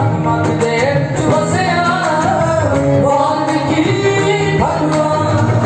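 A woman singing a devotional shabad through a microphone, her voice gliding between held notes over steady sustained instrumental accompaniment.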